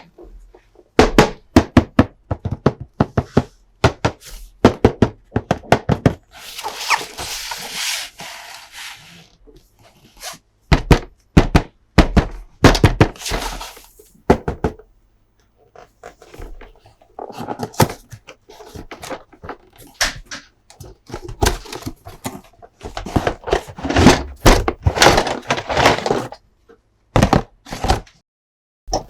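Hands handling plastic toy pieces and packaging: a run of irregular clicks, knocks and thunks, with a few seconds of rustling in the first third and busier clattering later on.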